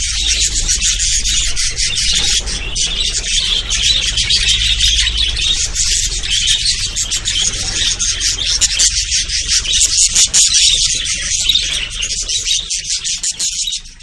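Dense, continuous chirping of many small caged birds at once, such as canaries, in a crowded aviary of cages. A steady low hum runs underneath.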